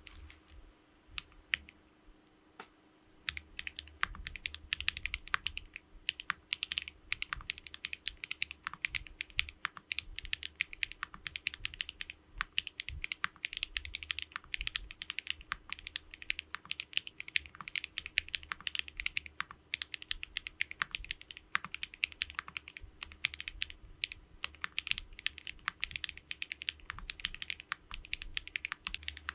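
Typing on a Foxlab Leaf65 gasket-mount mechanical keyboard with stock HMX Cheese switches, an aluminium flex-cut plate and no foam, on a felt deskmat. A few single keystrokes come first, then continuous fast typing from about three seconds in.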